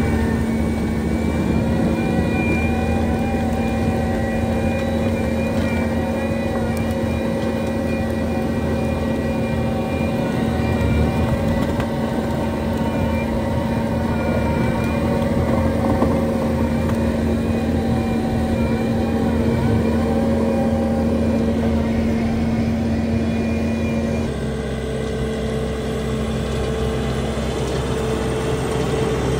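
Skid-steer loader running at steady high revs, driving a hydraulic soil-conditioner attachment, with a steady whine over the engine. The pitch pattern changes abruptly about 24 seconds in.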